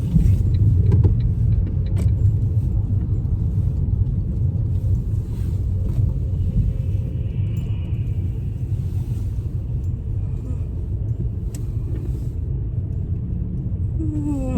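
Steady low road and engine rumble of a car heard from inside the cabin while driving. Near the end a voice slides down in pitch, a yawn.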